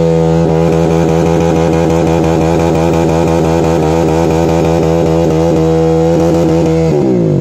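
KTM RC single-cylinder motorcycle engine held at high, steady revs during a stationary burnout, its rear tyre spinning in loose dirt. Near the end the revs fall away as the throttle is released.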